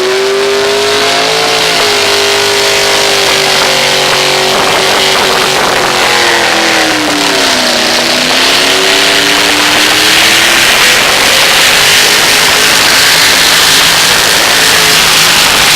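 Engine of a competition pulling vehicle running hard at high revs during a pull. Its pitch climbs at the start, holds high, dips briefly about seven to eight seconds in, then climbs back.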